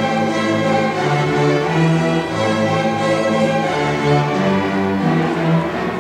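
High school string orchestra playing: violins, violas, cellos and double basses bowing together, the low strings moving through held notes that change every half second or so.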